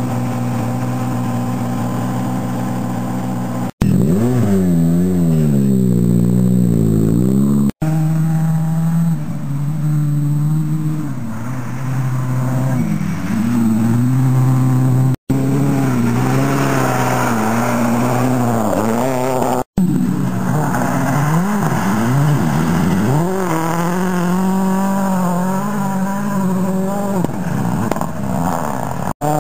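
Ford Focus RS WRC rally car engine revving hard, its revs rising and falling again and again as it is driven round the stage. The sound cuts out for an instant several times where short clips are joined.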